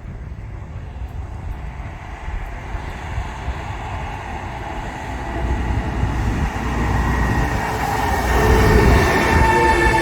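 Passenger train approaching, its low rumble building steadily louder; from about eight seconds in, steady high-pitched tones join it.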